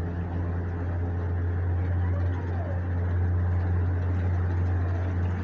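Tour boat's motor running steadily at slow speed, a low even hum.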